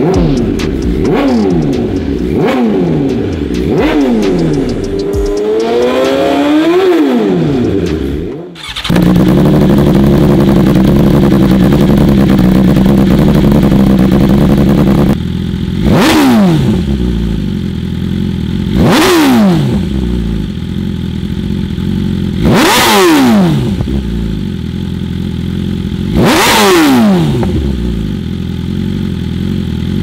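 2020 BMW S 1000 RR M's inline-four engine revved in neutral: several quick throttle blips and one longer rev, then, after a cut, held steady at raised revs for about six seconds. Through an Austin Racing GP1R exhaust it then idles and is blipped four times, each rev rising sharply and falling back to idle.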